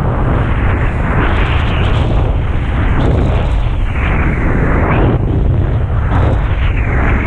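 Strong wind buffeting the microphone in a loud, continuous rumble, over the rush of water and spray as a kitesurfer rides, swelling and easing every second or so.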